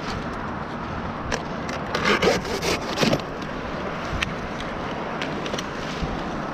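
Dry palm fronds and leaf bases rustling and scraping close to the microphone over steady wind noise, with scattered small cracks. A louder scraping rustle comes about two to three seconds in.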